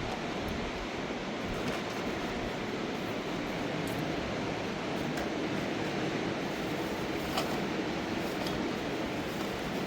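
Steady rush of a fast-flowing mountain river, with a few faint clicks over it.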